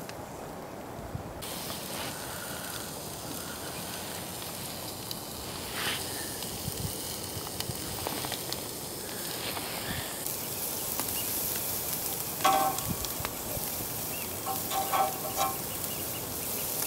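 Lamb cutlets sizzling on a charcoal grill grate, a steady hiss that begins about a second in and grows louder about two-thirds of the way through. A few metallic clinks of tongs on the grate come near the end.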